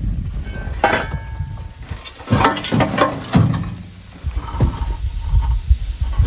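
Pieces of scrap metal knocking and clanking as they are handled, with a cluster of sharp knocks between about two and three and a half seconds in, over a steady low rumble.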